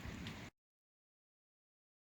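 A steady rushing outdoor noise that cuts off abruptly about half a second in, followed by complete digital silence.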